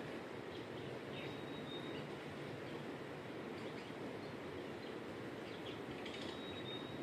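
Quiet riverbank ambience: a steady low rush of outdoor noise, with two faint, short, high whistled bird notes, one about a second in and one near the end.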